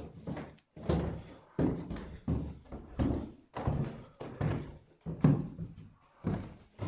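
Footsteps going down a staircase, a steady series of heavy steps at a little over one a second.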